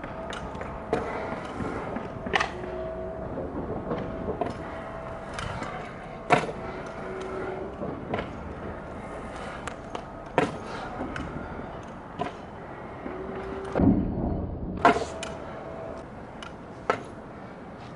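Stunt scooter wheels rolling on concrete with a steady rumble, broken by a sharp knock every few seconds as the deck and wheels strike the ramp.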